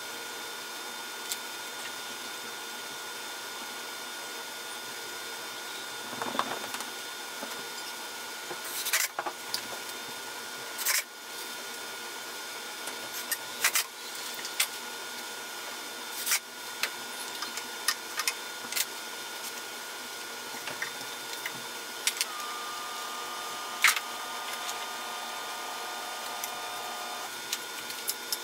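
Scattered light knocks and clicks of toiletry bottles and containers being set down on the pine shelves of a medicine cabinet, over a steady hiss. A faint steady whine sounds for about five seconds near the end.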